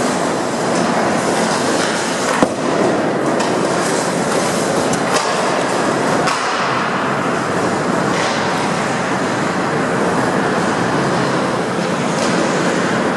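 Ice hockey play on a rink: a steady rushing noise of skating, broken by sharp clacks from the play. The loudest clack comes about two and a half seconds in, with fainter ones around five and six seconds.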